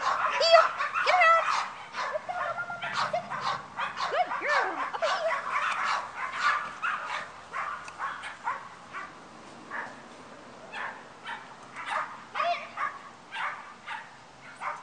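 Dog barking and yipping over and over, loudest in the first couple of seconds and fainter after that.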